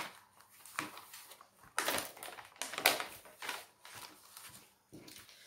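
Plastic protective film of a diamond painting canvas rustling and crinkling as hands smooth and press it back down, in short irregular bursts.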